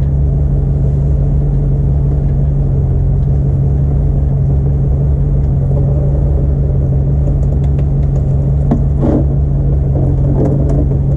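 A vehicle engine idling with a steady low hum. A few faint metallic clicks come about eight to nine seconds in.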